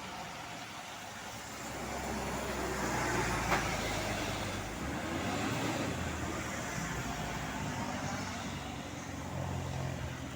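Motor vehicle passing on the road, engine and tyre noise building about two seconds in and staying loud, with a single sharp click about three and a half seconds in.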